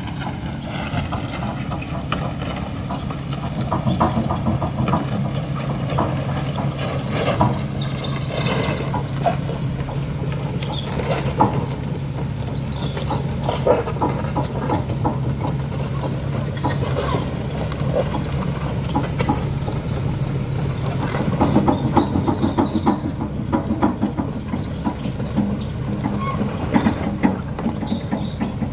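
Heavy diesel engines of an excavator towing a 42-ton crane up a steep climb, running steadily under load, with many irregular knocks and clanks.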